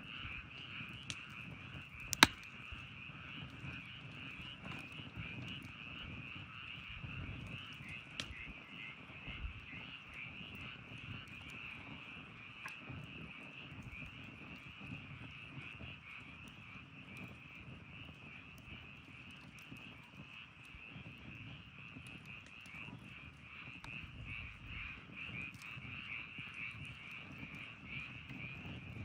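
A steady chorus of frogs calling throughout, over a crackling campfire. The fire gives scattered pops, one sharp loud pop about two seconds in.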